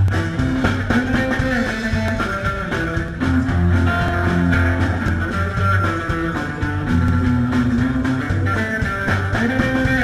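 Live rock-and-roll band playing an instrumental passage: guitar leading over a walking upright double bass, with a steady beat.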